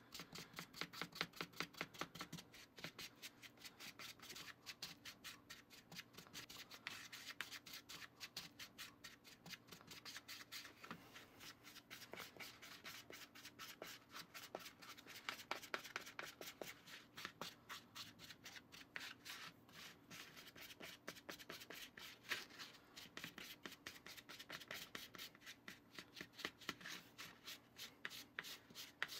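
A plastic spoon stirring and scraping a damp, crumbly cookie mix around a small plastic bowl in quick, repeated strokes; faint. The mix is still crumbly and not yet clinging together.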